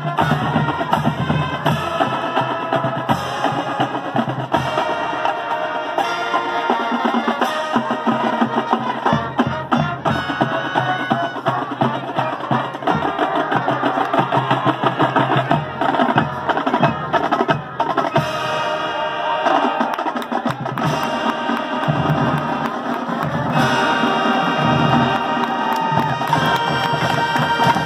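High school marching band playing its field show: brass and woodwinds over drums, with many sharp drum strokes.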